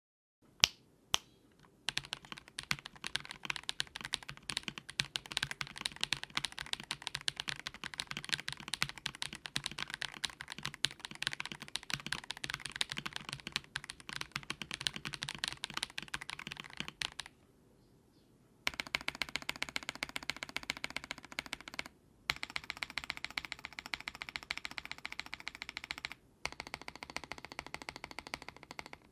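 Typing on an Akko PC75B Plus mechanical keyboard with Akko CS Wine Red linear switches: a fast, steady run of keystroke clicks. There are two sharp single clicks at the very start and a pause of about a second and a half midway. Two brief pauses come later.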